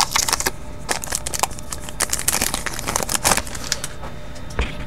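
A pack of baseball cards being opened by hand: the wrapper crinkles and the cards rustle as they are handled, in irregular clusters of sharp crackles.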